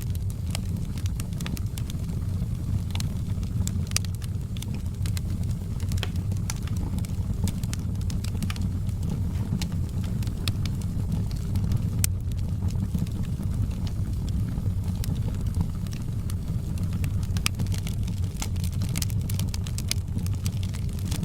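Wood fire burning in a fireplace: a steady low rumble of the flames with irregular sharp crackles and pops of the burning logs.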